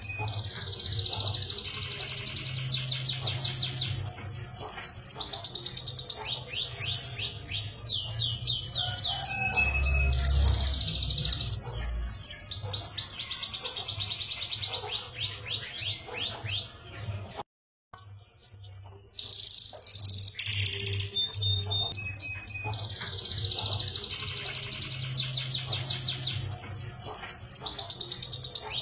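Domestic canary singing a long, continuous song of rapid trills and rolls, with series of quick repeated sweeping notes. The song breaks off for a moment a little past halfway, then starts again over a steady low hum.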